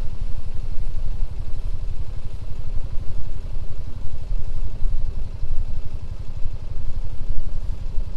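Small vehicle engine running steadily at low revs, a rapid even low rumble.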